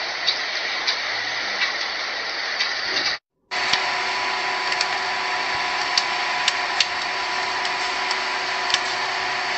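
Steady hiss of heavy rain, with scattered sharp ticks of drops striking a nearby surface. About three seconds in it cuts out for a moment and a second recording of the downpour starts, with a steady hum underneath.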